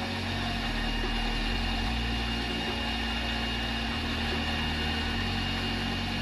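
Induction motor running as a capacitor-excited generator, spun by a primary drive motor at about twice its rated speed: a steady mechanical hum with one constant tone over it.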